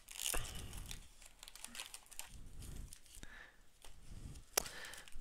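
Plastic-wrapped trading card booster packs rustling and crinkling as a stack of them is lifted out of a cardboard display box, with small clicks and one sharp tap near the end.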